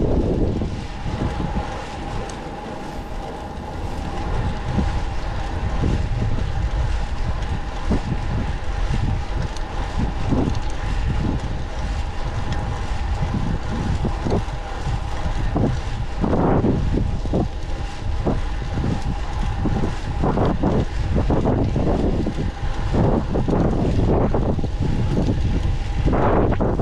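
Wind buffeting the microphone and road rumble from a bicycle ride, with a steady faint hum running underneath and gusts that swell several times in the second half.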